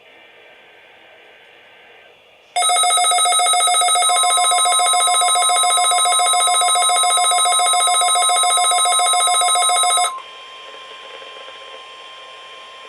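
Midland WR-400 weather radio sounding its loud, rapidly pulsing electronic alert beep for about seven seconds, set off by a NOAA weather radio Required Weekly Test. Before it, a faint two-tone data warble from the test's coded header is heard through static; after the beeping cuts off, a steady tone continues faintly.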